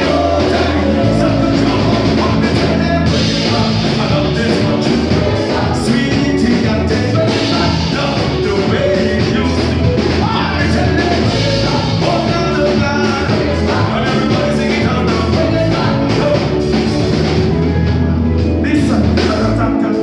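Live band music: a man singing into a microphone over electric guitar, drums and a steady bass line.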